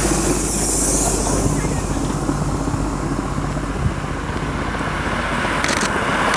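Vehicle engine running steadily, with a pickup truck driving past in the first second and a half, its tyre hiss fading as it goes.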